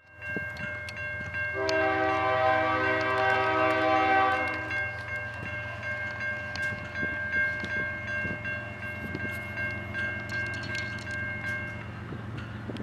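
Approaching Norfolk Southern freight locomotive sounding its multi-note horn in one long blast starting about two seconds in and lasting about three seconds, over a low steady rumble of the train and a steady high ringing from the grade-crossing warning bell.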